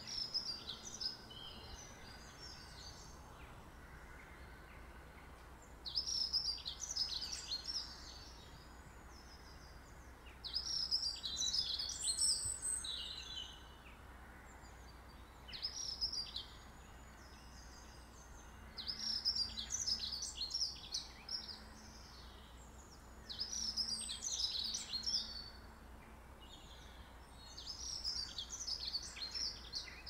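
A songbird singing short, high, falling phrases, one every four to five seconds, over a faint steady outdoor background noise.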